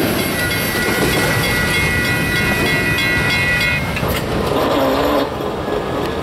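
Tail end of a freight train of autorack cars rolling away on the rails. A grade-crossing bell rings steadily, then stops just past halfway, a sign that the train has cleared the crossing.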